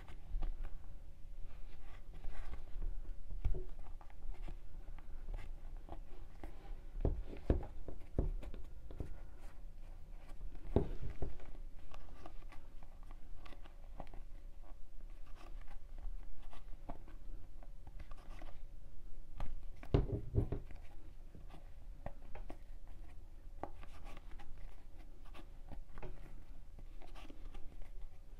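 Crochet hook and macrame yarn worked by hand: soft scratchy rubbing and small irregular clicks as stitches are pulled through, with a few dull bumps.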